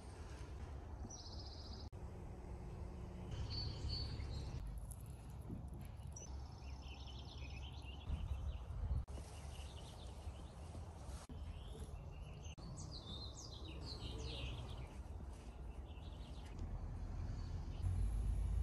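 Outdoor garden ambience: small birds chirping and singing on and off over a steady low rumble, which grows louder near the end.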